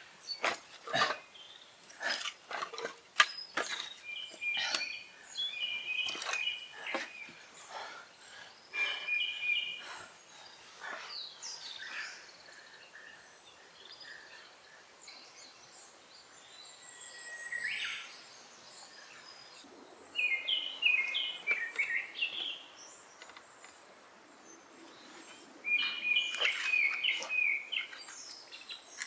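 Songbirds singing in short repeated phrases several times over, with a thin, high rising whistle about two-thirds of the way through. Through roughly the first ten seconds a run of sharp clicks and knocks sounds among the birdsong.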